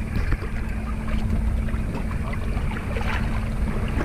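Small outboard motor running steadily at an even pitch under way, with water splashing along the hull.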